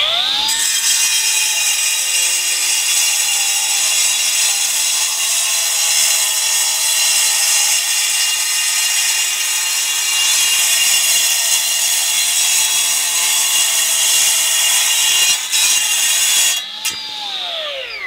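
Milwaukee M18 Fuel 9-inch cordless cutoff saw with a Roc Crusher Supreme diamond blade wet-cutting a concrete paver: a steady high whine over a harsh grinding hiss. It comes up to speed at the start, the pitch sags a little under load, and the saw winds down near the end.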